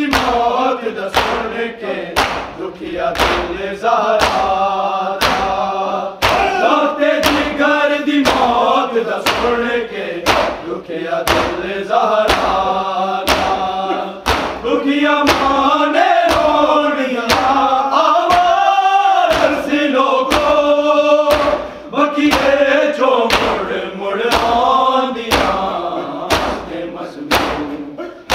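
Noha lament chanted by voices in chorus, a continuous sung melody over a steady beat of sharp strikes.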